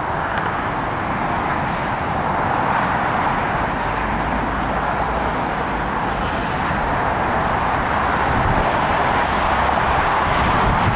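Steady road traffic noise, a constant wash of tyre and engine sound that grows slightly louder near the end.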